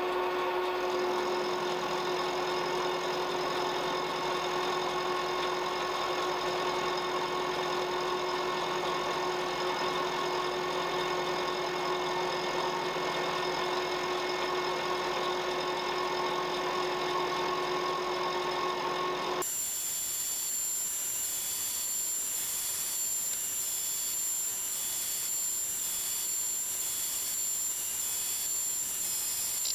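Milling machine running with an end mill taking light 0.25 mm (10 thou) cuts along a metal bar, a steady mechanical whirr of spindle and cutter. About two-thirds of the way in the sound changes abruptly to a thinner, higher-pitched whine.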